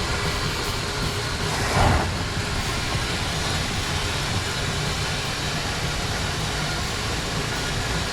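A car engine running steadily with a rough low rumble, with one brief louder surge about two seconds in.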